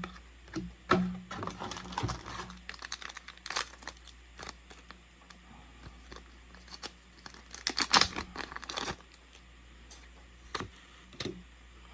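Foil booster-pack wrapper crinkling and tearing as a trading-card pack is opened. There is a run of crackles over the first few seconds and a louder burst of them about eight seconds in.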